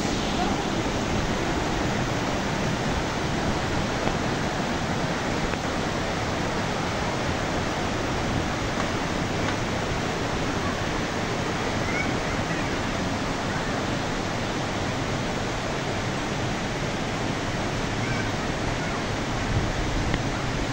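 Steady rush of a mountain stream tumbling over rocks.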